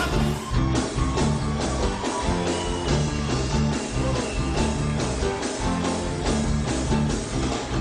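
Live band playing an instrumental passage with bass, guitar and a steady drum beat.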